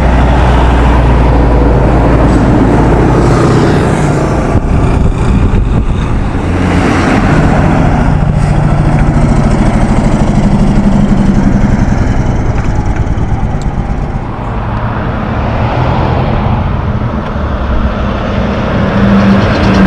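Heavy diesel logging trucks driving past on a highway one after another. Each engine is pulling under load, with tyre and road noise that swells and fades as the truck goes by.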